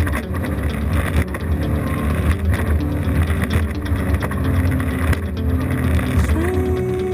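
Haines Hunter 525 Prowler trailer boat underway at sea: a steady, deep engine drone with water rushing and slapping along the hull. Near the end, a guitar note slides up and holds as a song fades in.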